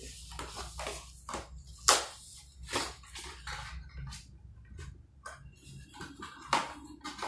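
A package being handled and opened by hand: irregular rustling, crinkling and knocks of packaging, with a few louder crackles about two seconds in, near three seconds and late on.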